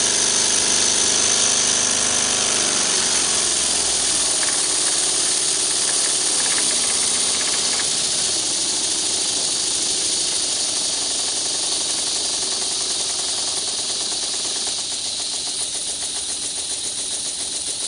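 Small model twin-cylinder double-acting oscillating engine running on compressed air: a fast, steady hiss of exhaust beats. It eases off gradually, and near the end the separate puffs can be told apart.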